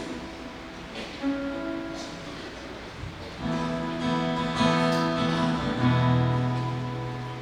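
Acoustic guitar playing slow strummed chords, each left to ring, with a low bass note sounding out near the end.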